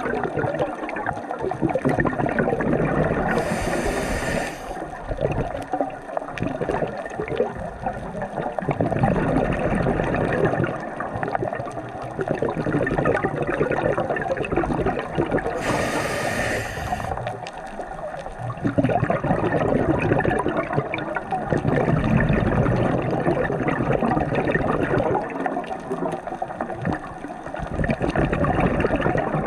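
Water sloshing and gurgling, with a brief hissing rush about four seconds in and again at about sixteen seconds.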